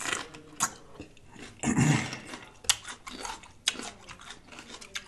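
Close-miked eating of raw sweet mini peppers: crisp bites, crunching and wet mouth smacks in short separate strokes, with a short throaty vocal noise about two seconds in, the loudest moment.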